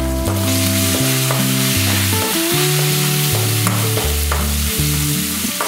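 Chopped garlic and ginger sizzling steadily in hot gingelly (sesame) oil as they are sautéed and stirred in the pan, with a few faint spatula clicks.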